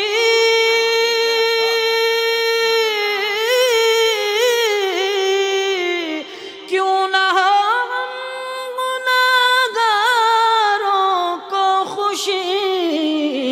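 A man singing an Urdu naat unaccompanied, stretching a word into long melismatic notes. He holds one note steady for about three seconds, then wavers through an ornamented run, breaks off briefly about six seconds in, and holds another long note.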